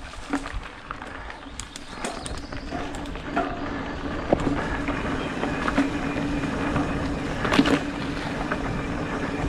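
Mountain bike rolling fast down a leaf-covered dirt singletrack: tyre noise on the dirt with a steady hum that grows louder about two seconds in, and frequent clicks and rattles from the bike over bumps, the loudest near the end.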